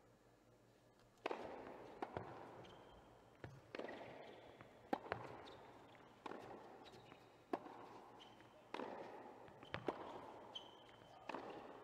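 Tennis rally: a ball struck back and forth by rackets about every second and a quarter, each hit echoing around a large indoor hall, with a few softer knocks and short high shoe squeaks on the hard court between hits.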